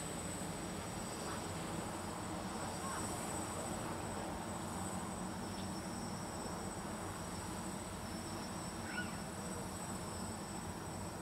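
Distant F450 quadcopter hovering and flying low, its motors and propellers giving a steady insect-like buzz. A short high chirp sounds about nine seconds in.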